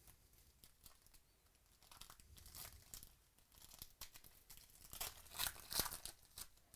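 A foil-wrapped 2017 Panini Illusions football card pack being torn open by hand, its wrapper crinkling in a run of short rips that start about two seconds in and are loudest near the end.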